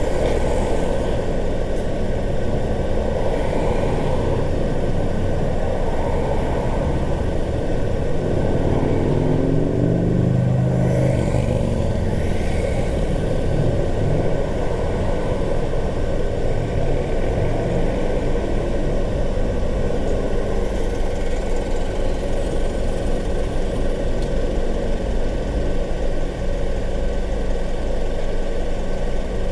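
Car driving through city traffic, with steady engine and road noise. An engine note swells and bends in pitch about ten seconds in, then fades.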